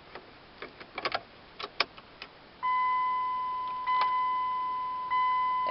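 Keys clicking in a Dodge Journey's ignition, then a steady electronic dashboard chime that starts about two and a half seconds in and renews about every second and a quarter. No engine cranking is heard: the car won't start with the key turned all the way.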